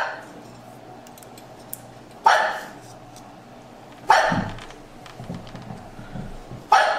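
A dog barking, single barks about two seconds apart, four in all, the last near the end.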